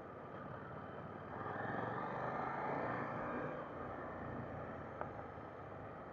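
KTM 890 Duke GP motorcycle under way, its parallel-twin engine running under wind rush over the camera microphone. The sound swells about a second and a half in and eases off after about three and a half seconds, with a single sharp click about five seconds in.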